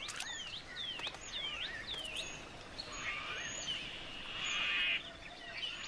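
Birds calling: a run of short whistled notes that slide down and back up, about two a second, then a buzzy rattling trill about halfway through.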